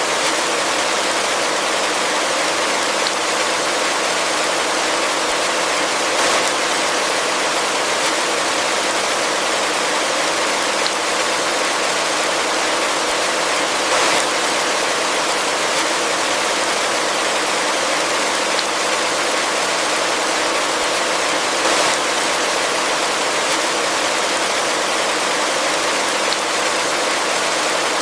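Heavy rain falling steadily in a forest, a dense even hiss, with a few brief slightly louder surges every several seconds.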